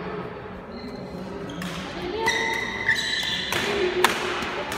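A badminton rally: about five sharp racket strikes on the shuttlecock, roughly every half to three-quarters of a second from about a second and a half in, the loudest near the end. Short high squeaks of shoes on the court floor come between the hits.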